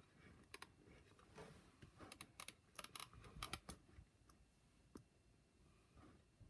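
Near silence with a scatter of faint clicks and taps of handling noise, bunched over the first three or so seconds, with one more about five seconds in.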